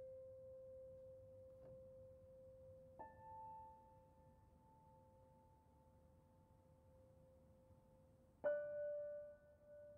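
Piano played slowly and softly, with single notes struck a few seconds apart and left to ring and fade. One note is still dying away at the start, another joins about three seconds in, and a louder note sounds near the end.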